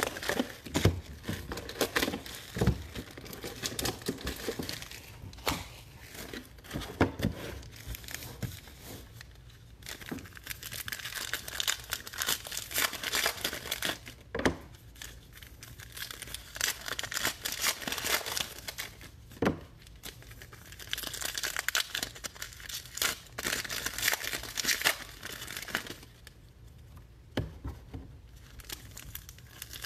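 Foil trading-card pack wrappers crinkling and tearing open, with cards handled on a table between: a dense, irregular run of crackles and small clicks that eases off briefly near the end.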